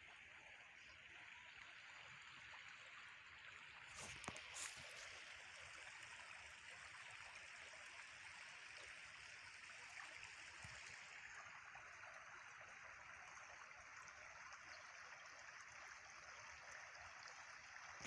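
Faint, steady rush of running stream water, with a few brief clicks about four seconds in.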